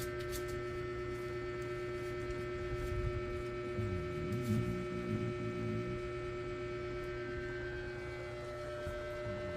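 A sleeper snoring softly, one breath about four seconds in and the next near the end, under a steady electrical hum.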